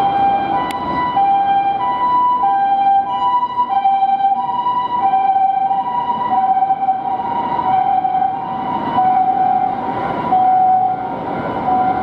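Japanese ambulance two-tone siren sounding while the ambulance is on an emergency run, alternating steadily between a high and a low tone, the 'pee-poh' pattern, about one pair every one and a quarter seconds, over road traffic noise.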